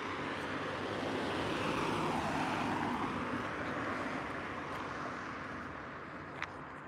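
A passing vehicle: a steady rush of noise that swells to its loudest two to three seconds in, then slowly fades. There is a single short click near the end.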